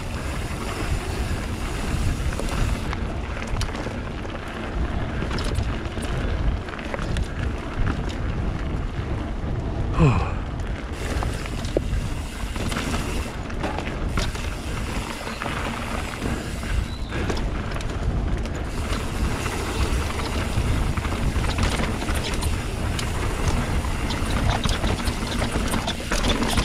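Mountain bike riding fast down a dirt trail: tyres rolling over dirt and roots, the bike rattling over rough ground, and wind rushing over the microphone. About ten seconds in, a brief loud sound slides down in pitch.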